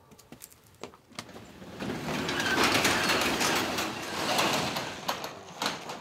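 Sectional garage door pushed open by hand, a few clicks followed by a long rattling run as it rolls up along its tracks, loudest between about two and five seconds in.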